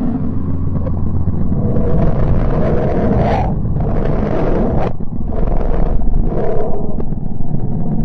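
The sound presented as Mercury's: radio emissions from the planet turned into audio, a loud low drone with a hiss that swells and cuts away several times.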